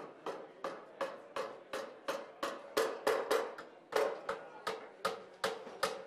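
Hammering nails into lumber and metal stringer brackets: a steady run of sharp blows, about three a second, each ringing briefly.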